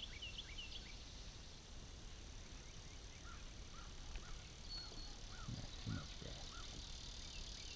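Faint outdoor ambience: birds calling in a quick series of short chirps over a steady high insect drone.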